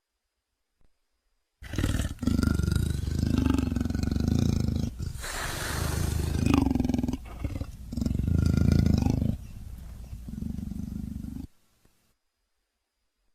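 Troodon creature sound effect: a run of loud, rough roaring calls lasting about ten seconds, broken by a few short pauses, with a harsher hissing stretch in the middle, then silence.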